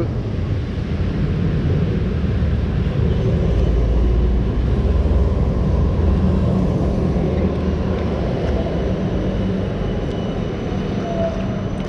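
Steady low rumble of city traffic on wet streets, swelling a little in the middle and easing off towards the end.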